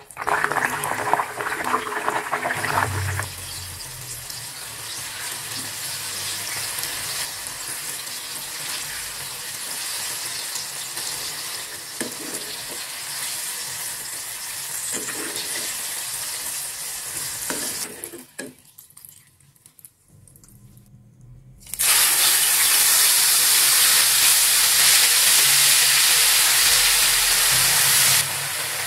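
Eggplant pieces deep-frying in hot oil in a small pan: a loud sizzle as they go in, settling into a steady sizzle. After a short, quieter break comes a louder, even sizzle of chili paste frying in oil in a wok; it drops off abruptly near the end.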